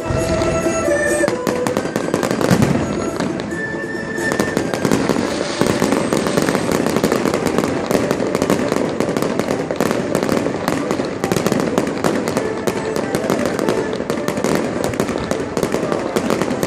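Fireworks going off in a dense, continuous barrage of crackles and bangs, with a few short whistling tones in the first seconds.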